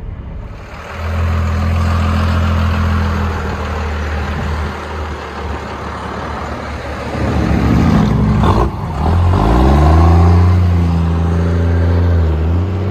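5.9-litre Cummins inline-six turbodiesel of a 1997 Dodge Ram 2500 with the muffler deleted, heard from inside the cab, running with a steady low drone. About eight seconds in the note breaks up, then climbs and settles into a steady drone again.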